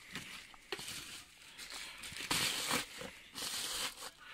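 Plastic bubble wrap crinkling and rustling in several short bursts as it is handled and unwrapped.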